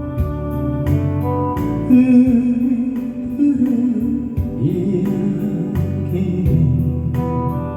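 Instrumental accompaniment of a Korean ballad-style song, with sustained pitched notes over a steady regular beat.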